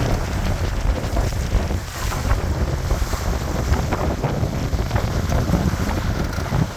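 Wind buffeting the microphone with a heavy, steady rumble. Water splashes and laps against the hull of an O'Day Daysailer II sailboat under way.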